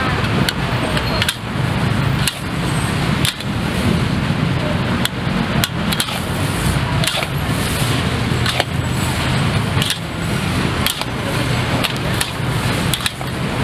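Metal spatula clanking and scraping against a wok in sharp, irregular knocks while a Pad Thai is stir-fried, over a steady rushing noise.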